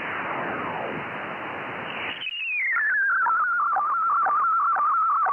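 A shortwave receiver's upper-sideband audio while it is being tuned: at first a hiss of noise with falling sweeps, then about two seconds in a whistle glides down in pitch and settles into a louder, steady, slightly wavering tone with a faint tick about twice a second. The settled tone is the weatherfax transmission from NMF, Boston, near 9110 kHz, coming in on a Yaesu FTdx10.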